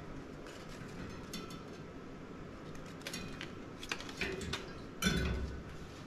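Metal clicks and rattles of bicycle wheels being handled on a storage rack, coming in small clusters, with a louder knock about five seconds in.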